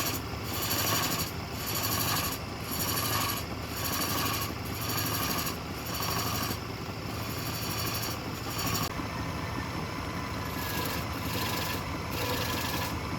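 Wood lathe running, with a turning tool cutting into the spinning wood: a hissing cut that swells and eases in strokes about once a second over a steady motor hum, going on more evenly near the end.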